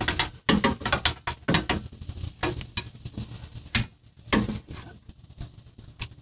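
Irregular metallic clicks, knocks and scrapes as a compressed coil spring, held in a ratchet strap, is worked by hand into its seat on a Jeep's rear axle.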